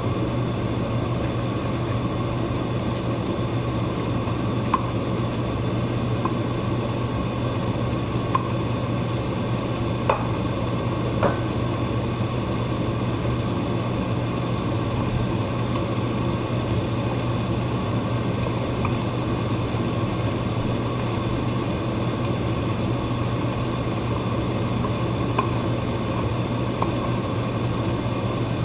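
A nakiri knife slicing a red bell pepper on a wooden cutting board, with a few scattered sharp taps of the blade on the board. A steady hum and hiss underneath is louder than the cutting.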